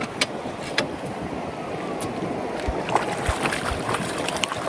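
Water lapping and splashing against the hull of a small fishing boat, with wind noise, scattered sharp clicks and a few low knocks.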